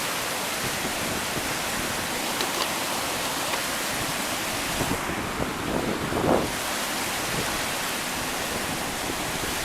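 Steady rushing of a rain-swollen waterfall torrent, an even roar of falling water, with a brief louder low rush about six seconds in.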